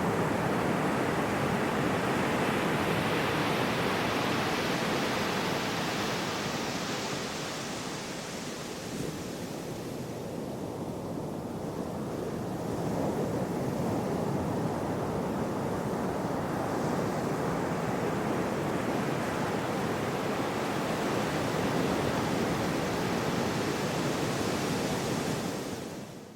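Gentle sea waves breaking and washing on a shore: a steady rush of surf that eases about a third of the way in and swells again.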